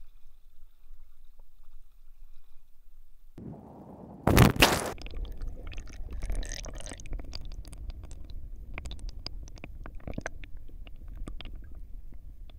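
A camera going under water with a loud splash about four seconds in, then muffled underwater sound: a low rumble of moving water with scattered small clicks and ticks.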